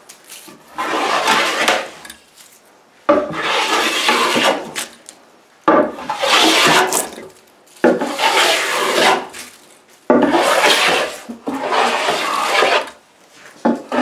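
Hand plane taking full-length strokes along a wooden board, shaving it: about six strokes, each lasting about a second and a half and starting sharply as the blade bites, with short pauses between.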